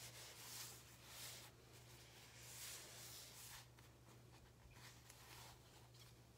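Faint swishing of a hand rubbing and smoothing a sticky adhesive stencil transfer onto a fabric tote, a few strokes in the first few seconds, then fainter.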